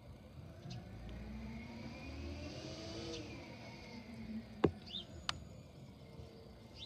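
Rear-loader garbage truck's engine revving up, rising in pitch for about two and a half seconds and then cutting off about three seconds in. A single sharp knock comes about four and a half seconds in, with a few short bird chirps after it.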